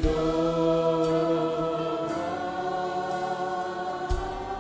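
Christian worship song: singers hold one long note over the backing music, and the chord shifts about two seconds in. A low thump comes about four seconds in.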